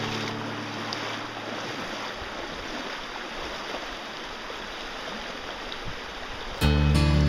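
Shallow river water running over rocks in a small riffle: a steady rushing hiss. The last notes of a song fade out at the start, and loud music with guitar cuts in suddenly near the end.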